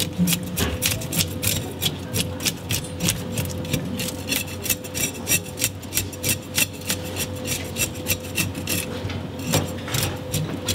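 Knife blade scraping the scales off a whole Japanese sea bream (tai): quick rasping strokes, about four a second.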